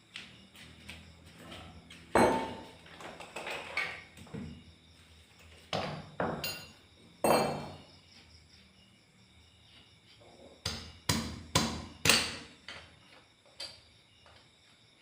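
Irregular knocks and clanks of parts being handled and struck during assembly of a remote-control lawn mower: a few scattered single hits, then a quick run of about four sharp strikes about two-thirds of the way through.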